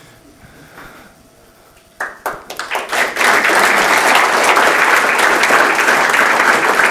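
Audience applauding. It starts suddenly about two seconds in and quickly builds to steady, dense clapping.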